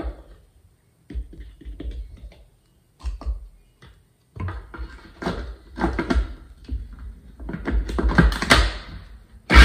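Irregular clicks and knocks of plastic kitchenware: a measuring cup scooping flour from a plastic canister and emptying it into a food processor bowl, then the processor's plastic lid being set back on, getting busier and louder near the end.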